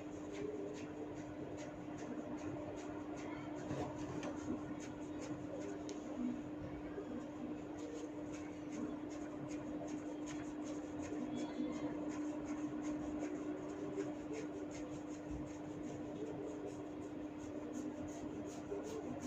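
Hair cracking: small tufts of hair pulled sharply at the scalp, giving many quick, faint crackles and pops at an irregular pace, over a steady low hum.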